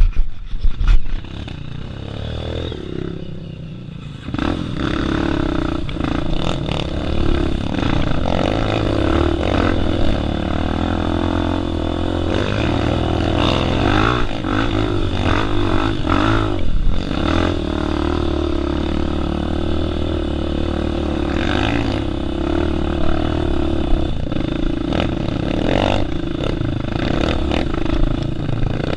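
Single-cylinder four-stroke trail bike engine running under throttle on a rough dirt climb, revs rising and falling, with clatter and knocks from the bike over rocks and ruts. A few loud knocks come right at the start, and the engine gets louder about four seconds in.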